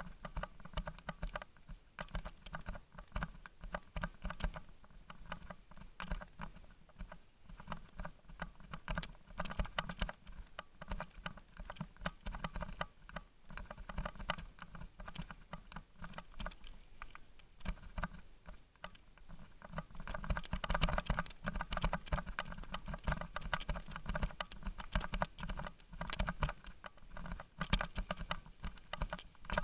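Mountain bike clattering and ticking as it rolls fast down a rough dirt trail: rapid, irregular rattling from the bike and its mounted camera jolting over bumps. It gets busier and louder about twenty seconds in.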